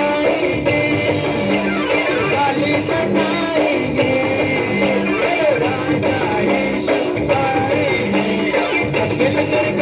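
A man singing into a microphone over his own electronic keyboard accompaniment, with a low bass note recurring under the melody.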